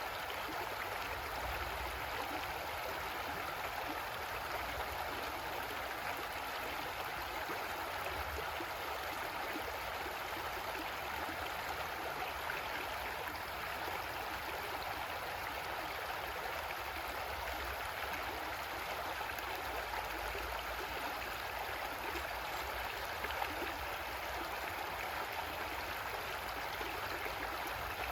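Creek water running steadily over rocks, a continuous rushing and gurgling with no breaks.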